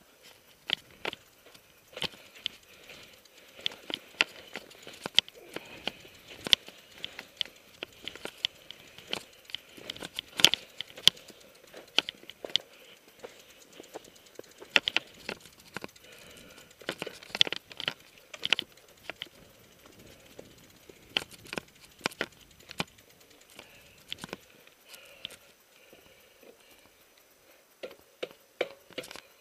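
Mountain bike descending a dirt trail, rattling and knocking irregularly as its tyres run over rocks, roots and pine needles.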